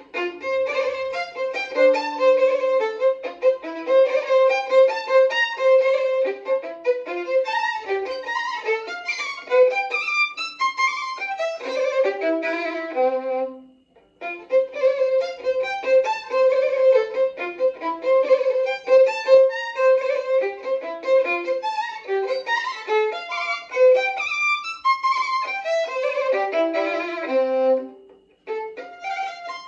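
Unaccompanied violin playing a fast passage, a repeated high note alternating with quick moving notes. It stops briefly about halfway through, and again near the end.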